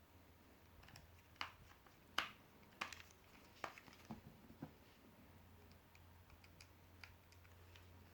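Faint scattered light clicks and taps, about six sharper ones in the first five seconds and a few fainter ones after, over a low steady hum.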